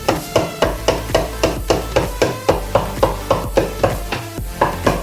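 Rapid, evenly paced hammer blows, nearly four a second, during work on a truck's rear axle and leaf-spring mounts, with background music underneath.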